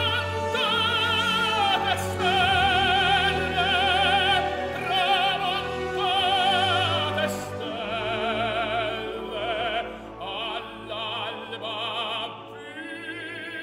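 Operatic singing with orchestral accompaniment, the voice held in wide vibrato; it grows quieter in the last few seconds.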